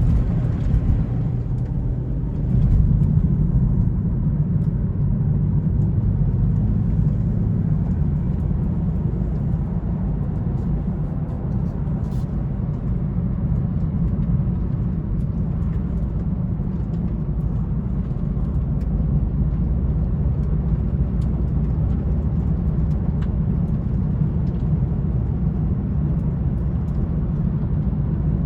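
2020 BMW M340i xDrive driving on snowy roads: a steady low rumble of engine and road noise.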